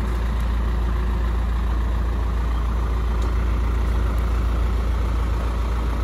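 Isuzu 4HE1 four-cylinder turbo diesel in a mini dump truck idling steadily.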